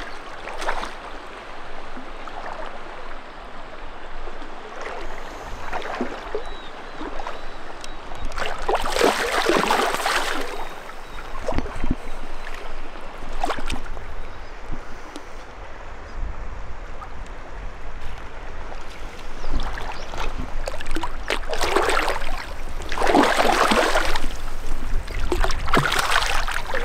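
River water running, broken by several bursts of splashing from a hooked trout thrashing at the surface. The splashes come about a third of the way in and again, loudest, in the last several seconds.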